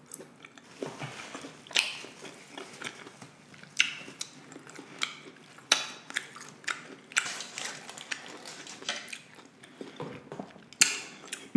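Close-miked chewing of a bite of beef kielbasa sausage: irregular wet mouth smacks and clicks, a few sharper ones every second or two.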